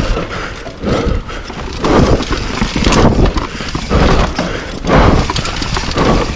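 Orange Stage 6 mountain bike ridden fast down a rough trail: tyres running over dirt, with irregular thumps and rattles about once a second as it hits bumps.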